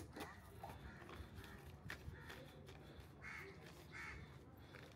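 Faint cawing of crows, several short calls over a quiet background, with a sharp click right at the start.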